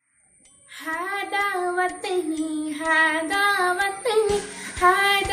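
A young girl singing a patriotic song solo, her voice coming in about a second in after a brief silence. A faint steady high-pitched whine runs underneath.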